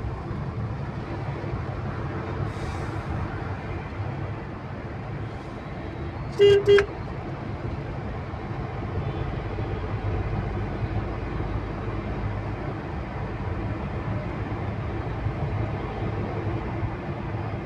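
Steady road and engine rumble inside a moving car's cabin, with a car horn beeping twice in quick succession about six and a half seconds in.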